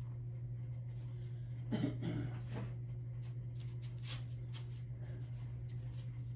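A steady low hum, with a short rough burst about two seconds in and a few faint clicks afterwards.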